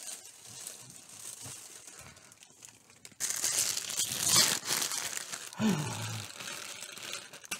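Paper towel being torn off a roll and crumpled in the hand: a crackly paper rustle that turns loud about three seconds in and lasts about two seconds. A short vocal grunt falling in pitch follows.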